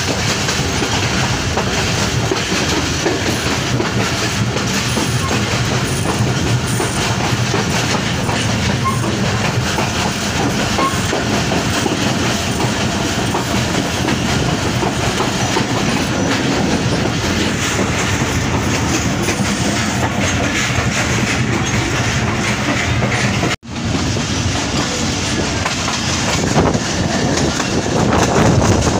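Passenger train coach in motion, heard from an open doorway: a steady rumble and clatter of wheels running over the track. The sound drops out for an instant near the end, then the same running noise carries on.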